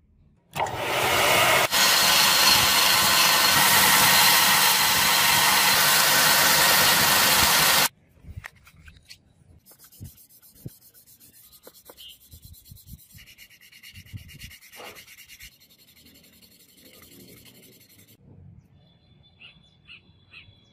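A loud, steady abrasive rasp for about seven seconds that cuts off abruptly, followed by quieter, irregular scratching as a small block is rubbed by hand on sandpaper.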